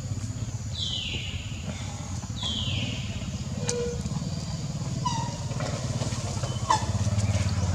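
A motor vehicle engine, likely a motorbike, running steadily in the background as a low, even pulsing, with two short high calls that fall in pitch during the first three seconds and a few short chirps later.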